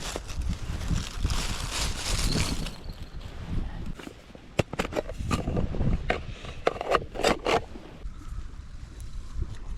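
Rustling and scraping handling noises, then a run of sharp clicks and short knocks in the second half.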